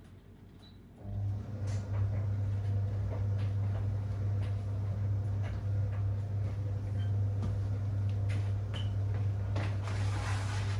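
Whirlpool 3RLSQ8033SWD top-loading washing machine starting up about a second in and running with a steady low hum, with scattered clicks and knocks from the machine.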